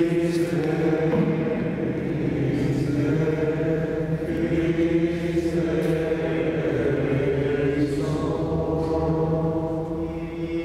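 Men's voices singing a slow liturgical chant of the Mass together, with long held notes.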